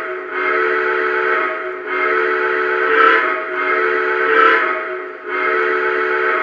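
Chime steam whistle from the sound system of a Lionel JLC Allegheny O-gauge model steam locomotive. It is blown in a string of blasts about a second long with short gaps between them, each a chord of several steady tones.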